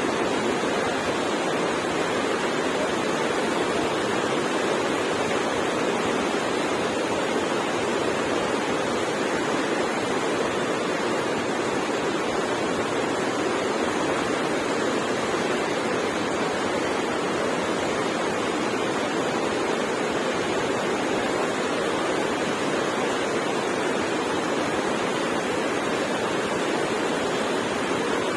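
Rushing water of the Alaknanda and Pindar rivers at their confluence: a steady, even rush of fast-flowing mountain river water.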